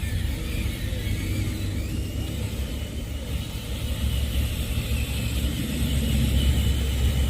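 An engine running steadily with a low rumble, getting somewhat louder about six seconds in.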